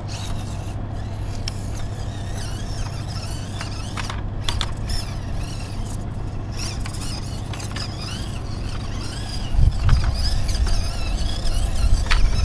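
Stock RC Jeep Wrangler JLU rock crawler driving over rock. Its small electric motor and drivetrain whir steadily, with a few knocks of tyres or chassis on the rock. It gets louder in the low end from about nine and a half seconds in.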